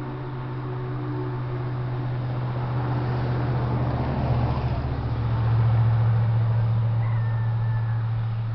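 A motor vehicle passing on the road, its low engine and tyre hum swelling to a peak about halfway through and then easing off. A short chirp, likely a bird, comes near the end.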